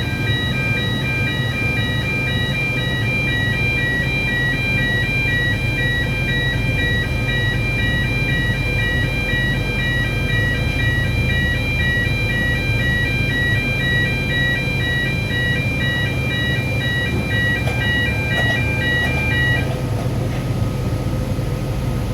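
Electronic warning alarm on a pivot flood gate beeping in a repeating high pattern, about two beeps a second, over a steady low machine hum while the gate is being operated. The beeping stops near the end.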